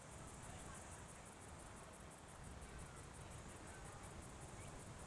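Faint, steady high-pitched pulsing trill of insects, over a low rumble, with a few faint short chirps.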